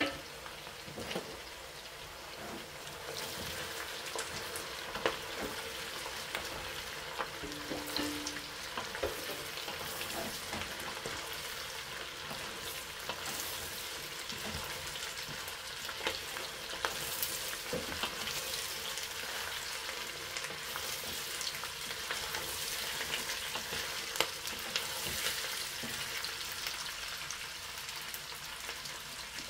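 Shredded red cabbage, carrots and bell peppers frying in oil in a stainless steel pot, with a steady sizzle. The vegetables are stirred with a wooden spoon that knocks against the pot now and then.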